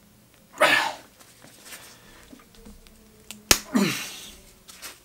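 Nylon webbing sewn to Cordura yanked hard by hand twice, about three seconds apart: two short, noisy strains, the second preceded by a sharp snap. The bar-tack stitching holds.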